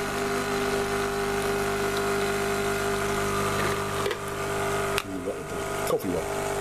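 Nescafé Dolce Gusto capsule coffee machine's pump humming steadily as it dispenses a milky drink into a glass cup, with a few sharp knocks around four, five and six seconds in.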